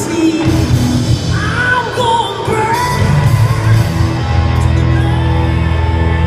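Music with singing played loud over a football stadium's loudspeakers, with held notes and a heavy low beat, above crowd noise.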